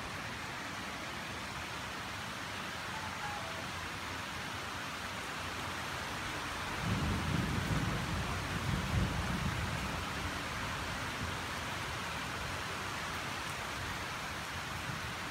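Steady rain falling, with a low rumble of thunder lasting about three seconds near the middle.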